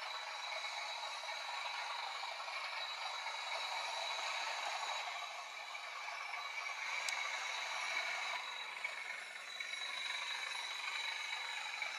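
OO gauge model train, a Bachmann Class 37 locomotive hauling a rake of hopper wagons, rattling and clattering steadily along the track with a constant high-pitched whine. A single sharp click comes about seven seconds in.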